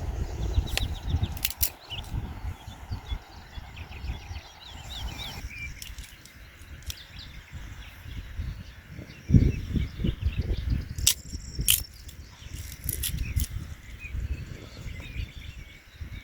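Outdoor ambience: small birds chirping over a gusty low rumble of wind on the microphone, with a few sharp clicks.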